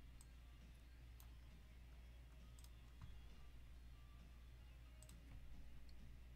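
Near silence over a low steady hum, broken by a few faint, scattered clicks of a computer mouse.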